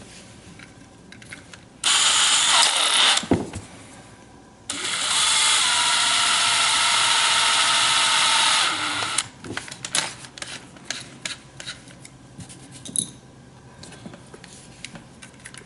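Power drill spinning a turnbuckle held in its chuck to thread the ball cups on. A short run of about a second and a half winds down with a falling pitch, then a steady run of about four seconds. Light clicks of handling the parts follow.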